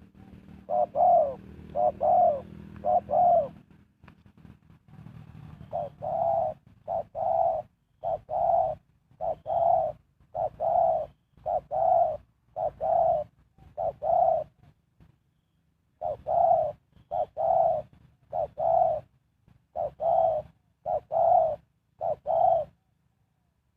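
Spotted dove cooing: a long series of evenly spaced coo notes, about one every two-thirds of a second, broken once by a short pause partway through.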